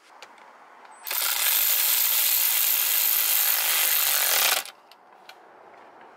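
Power ratchet driving a socket onto the hex bolts behind a steering wheel, tightening the driver's airbag in place. It runs for about three and a half seconds, starting about a second in and stopping sharply.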